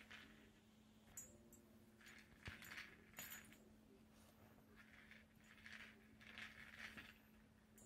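Faint rattling and clinking of kibble inside a hard treat-dispensing ball as a greyhound noses and mouths it, in several short bouts.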